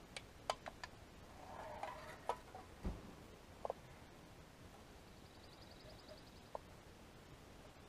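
Gloved hands handling empty aluminium drink cans and rope: a scatter of light clicks and taps, with one dull thump about three seconds in. A faint, fast high trill sounds briefly about five seconds in.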